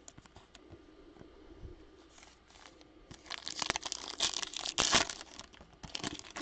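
Foil wrapper of a Topps Chrome trading card pack being torn open and crinkled in the hands. The crinkling starts about three seconds in, after a few faint handling ticks, pauses briefly and starts again near the end.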